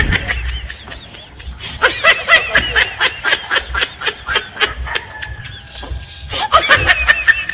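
Laughter: a rapid run of short, high-pitched laughing bursts, several a second, that eases off about a second in and picks up again about two seconds in.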